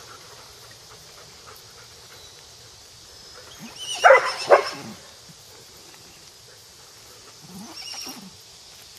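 A dog barking twice in quick succession about four seconds in, with a fainter short dog sound just before the end.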